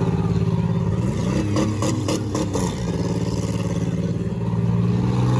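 Demolition derby cars' engines running loudly. One engine revs up and back down between about one and three seconds in, while a quick run of sharp bangs, cars smashing into each other, lands around two seconds in.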